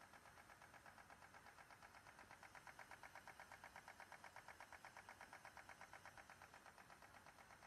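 High-speed stamping press running a stator and rotor lamination progressive die at about 500 strokes a minute: a faint, rapid, even clatter of roughly eight strokes a second.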